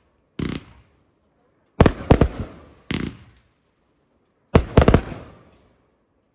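Fireworks going off: four clusters of sharp bangs, some single and some as quick double or triple cracks, each fading away over about half a second. The last cluster, near the end, is the loudest.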